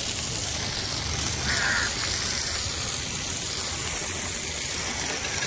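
Steady background noise of an open-air fish market, with one short call-like sound about a second and a half in.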